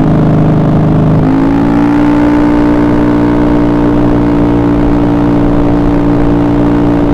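Honda BeAT carburetted scooter engine running at high revs while riding fast; its pitch rises about a second in and then holds steady.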